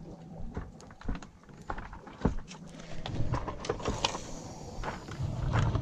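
Close handling noise as shrimp bait is threaded onto a fishing hook: irregular clicks and knocks, a few of them sharp, over a low steady hum.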